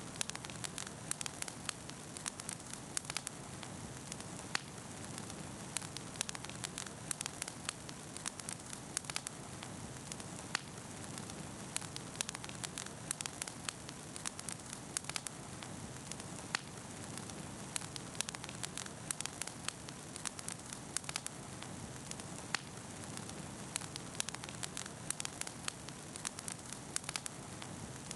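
Wood campfire burning, crackling with many sharp irregular pops over a steady low rush.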